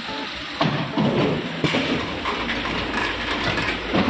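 Drink vending machine dispensing a can of coffee: a few knocks, then a low hum from about halfway through and a thud near the end as the can drops.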